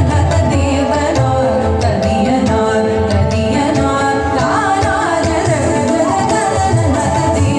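Hindustani tarana sung in Raag Jog to teental, the sixteen-beat rhythmic cycle: a voice singing melodic phrases over sustained accompaniment, with regular percussion strokes.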